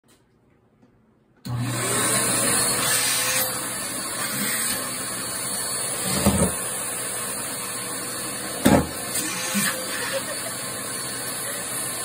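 Vacuum cleaner with a narrow hose nozzle switched on about a second and a half in, then running steadily. Two brief thumps stand out over the suction noise, one about six seconds in and one near nine seconds.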